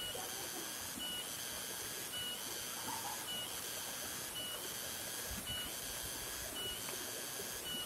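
Forest insects calling in a steady high drone that breaks and restarts about once a second, over an even hiss.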